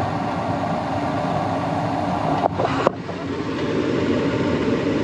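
Gas furnace running with its newly replaced Carrier inducer fan motor spinning: a steady mechanical hum and airy whoosh, with a brief dip about three seconds in.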